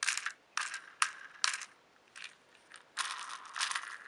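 Stiff plastic packaging crackling as it is handled, in about seven short, sharp crinkles with brief gaps between them.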